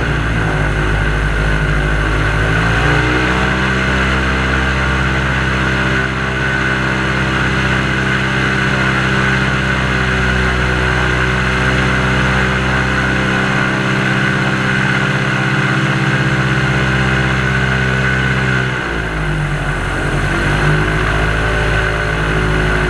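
Airboat engine and propeller running at speed. The engine throttles down and back up about two seconds in, and again near the end.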